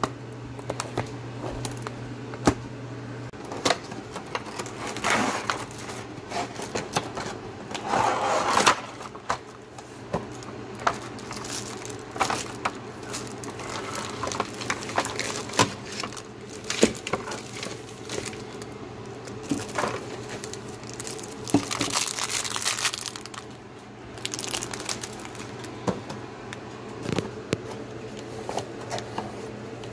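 Small objects being handled: crinkling and rustling like packaging, with scattered clicks and light knocks. Longer rustles come about eight seconds in and again around twenty-two seconds.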